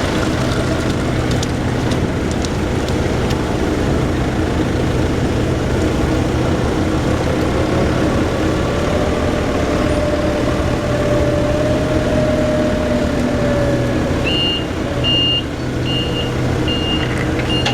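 Heavy vehicle or machinery engines running steadily, with a whine that rises in pitch and holds for several seconds in the middle. About three seconds from the end a reversing alarm starts beeping, roughly twice a second.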